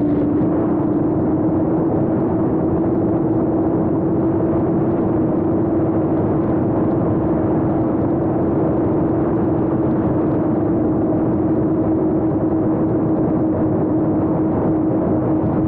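Motors and propellers of a 7-inch FPV quadcopter whirring steadily in flight, heard close from the onboard camera with a rush of air noise. The hum drops slightly in pitch at the start, then holds level at a cruising throttle.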